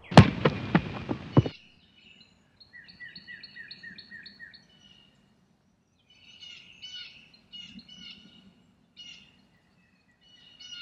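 Songbirds calling in the woods: a run of quick down-slurred chirps, about four a second, then scattered chirps. At the start a loud noisy burst lasts about a second and a half and cuts off sharply.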